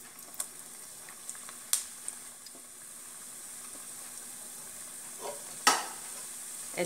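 Gulab jamun dough balls deep-frying in hot oil: a steady sizzle of bubbling oil that slowly grows louder, with a few light clicks. A single sharp knock near the end as a wire skimmer comes into the pan.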